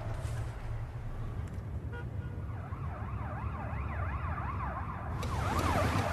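An emergency vehicle siren, its pitch rising and falling rapidly several times a second, starting about two and a half seconds in, over a low steady rumble of car and road noise.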